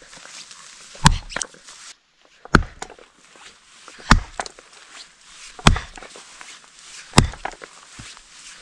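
Axe chopping into the trunk of a standing tree: five heavy strokes, about one every second and a half.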